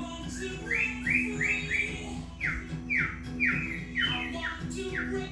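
Male cockatiel whistling a run of short, falling notes, about two to three a second, over background music.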